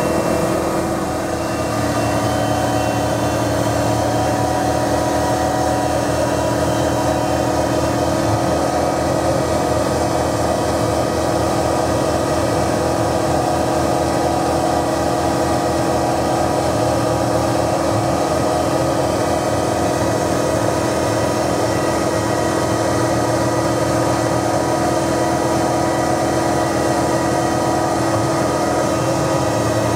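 Denford Novamill CNC milling machine running steadily, its spindle driving a fine engraving cutter through a brass name plate to mill raised lettering. A constant hum with a steady tone that barely changes throughout.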